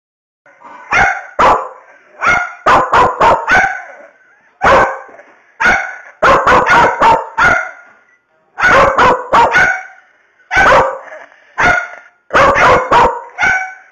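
A Bedlington terrier barking angrily: sharp barks in quick bursts of two to five, about two dozen in all, with short pauses between the bursts.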